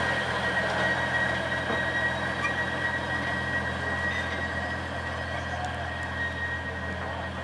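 Alishan Forest Railway train's engine humming steadily, with a thin steady whine above it, easing slightly quieter over the few seconds.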